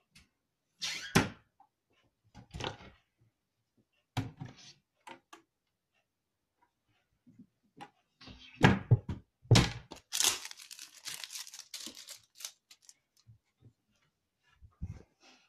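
Wooden kitchen cabinet doors and panels handled and knocked: a string of separate thunks and clicks, with a longer rustling scrape about two-thirds of the way through.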